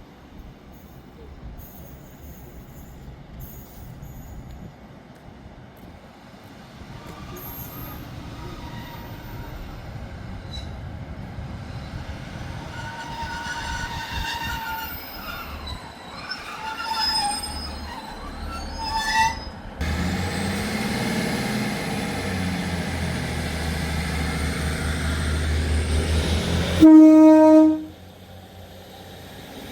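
A train approaching with wheels squealing on the rails, then a loud low rumble of a diesel train passing close by. Near the end a single-note train horn sounds loudly for about a second before the sound drops away abruptly.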